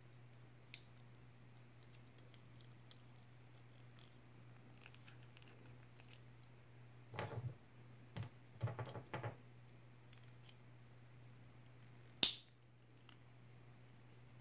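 Hard plastic parts of a Playmobil figure being handled and pressed together. A few soft clicks and rattles come around the middle, then one sharp snap a couple of seconds before the end as the head goes onto the body. A steady low hum runs underneath.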